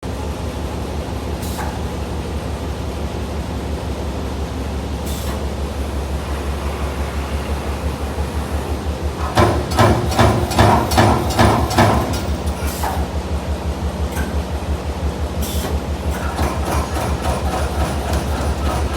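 CNC turret punch press punching sheet metal in a fast, even rhythm of strokes. About halfway through, a louder run of heavier strokes lasts a couple of seconds, and a few separate sharp clanks stand out.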